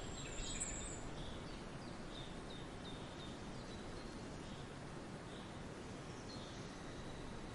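Forest ambience: a steady low background hiss with faint, scattered bird chirps and short calls, busiest about the first second and then a run of brief evenly spaced chirps.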